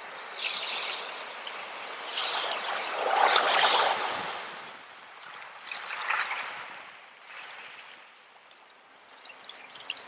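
Seawater washing over a bed of shells: a few surges of water rushing in and draining back through them, the loudest about three to four seconds in. Later it settles to a quieter trickle with small crackling clicks of shells.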